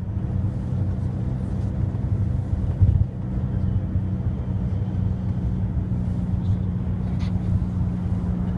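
Car driving along a road: a steady low rumble of engine and tyres, with a short bump about three seconds in.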